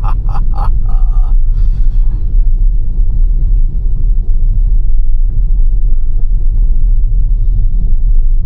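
Steady low road rumble of a Tesla's tyres on a snowy road, heard from inside the cabin. A short run of quick, sharp sounds comes in the first second or so.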